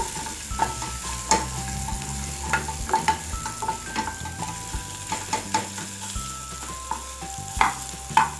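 Crushed garlic sizzling in oil in a metal frying pan while a wooden spoon stirs it, knocking and scraping against the pan many times.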